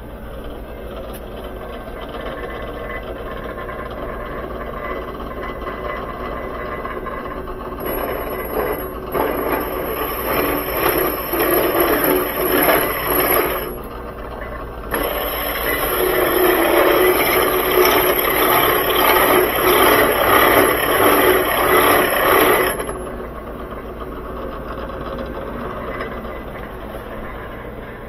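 A drill press runs with a steady motor hum while a tapered bit reams out the inside of a brass tube. Two bouts of harsh metal-cutting noise come as the tube is fed onto the bit: one about eight seconds in, lasting about five seconds, and a longer one from about fifteen seconds lasting about eight seconds.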